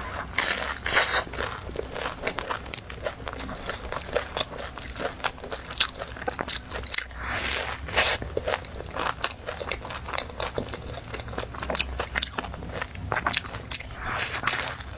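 Close-miked eating of a deep-fried taro pie: crisp crunches as the flaky fried crust is bitten, then chewing with crackles, in repeated bites.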